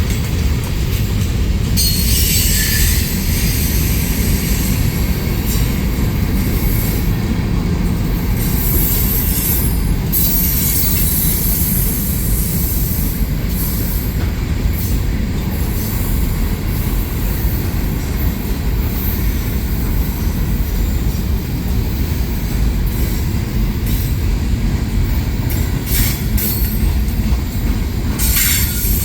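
Freight train cars rolling past with a steady low rumble and wheel clatter. The wheels squeal in bursts about two seconds in, around ten seconds, and again near the end.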